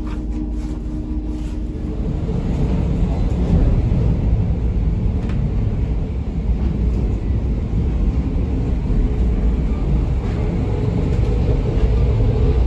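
Electric suburban train running on the rails: a dense low rumble that grows louder about two seconds in, where a few steady tones stop.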